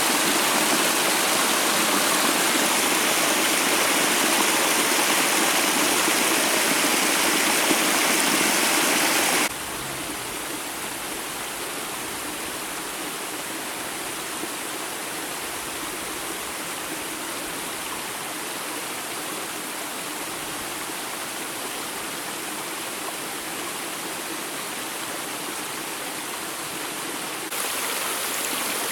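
Steady rushing of water from a spring-fed waterfall and its stream. The sound drops abruptly and turns duller about nine seconds in, then steps back up near the end.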